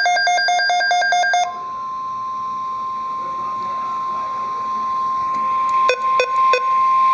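The tail of an Emergency Alert System SAME header, a rapid chirping burst of data tones, cuts off about a second and a half in. The single steady tone of the NOAA Weather Radio warning alarm follows and holds through the rest, announcing a severe thunderstorm watch. Three short clicks fall near the end.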